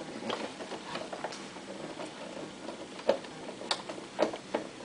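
Scattered light clicks and taps of a screwdriver and plastic parts being handled on a Toyota Super Jeans J34 sewing machine's housing, with a few sharper clicks from about three seconds in.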